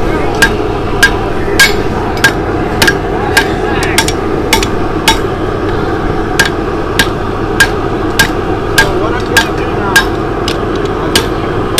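Hammer blows on hot steel over an anvil in an even rhythm, under two a second, each with a brief metallic ring, pausing briefly near the middle, over a steady background noise.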